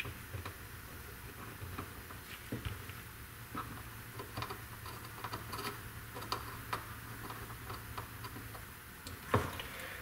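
Light scattered clicks and taps of small plastic security-camera parts being handled and marked with a marker pen, with a louder click about nine seconds in. A faint steady low hum sits underneath.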